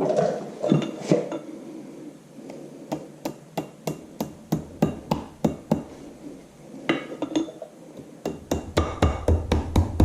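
Quick, light metallic taps on the cotter pin, one after another at about two to four a second, as its legs are bent over against the castle nut on a tractor front wheel spindle. A low hum comes in near the end.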